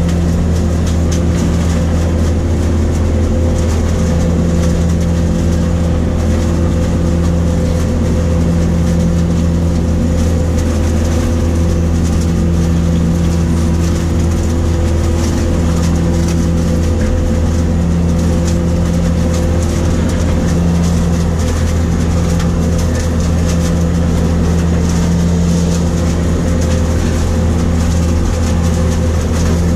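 New Holland self-propelled grape harvester running steadily while it harvests along a vine row, heard from inside the cab as a constant low drone.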